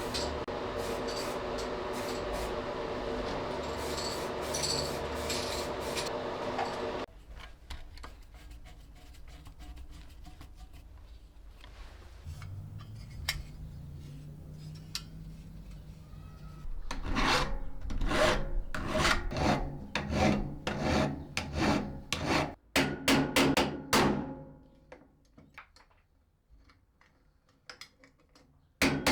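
Workshop restoration sounds. A steady running sound lasts about seven seconds and stops abruptly. After a quieter stretch of small clicks, a quick series of loud rubbing or filing strokes follows on a part being cleaned or shaped.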